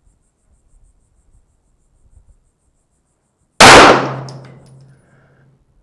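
A single 9mm pistol shot, very loud, about three and a half seconds in, with its echo fading over about a second and a half.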